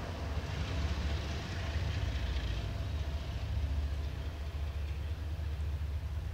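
GE ES44AC diesel locomotive, the rear distributed-power unit on a loaded tank train, running past with a steady low engine drone. It fades slightly as the locomotive moves away.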